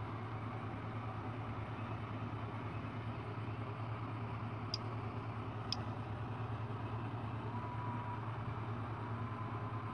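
Steady low background hum with two short clicks about a second apart near the middle.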